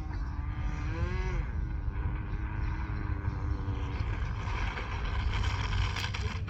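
O.S. Max .15 glow engine of a small RC plane running at a high, steady pitch. The pitch rises and then falls a little about a second in, and the engine fades out about four seconds in, leaving a low rumbling noise.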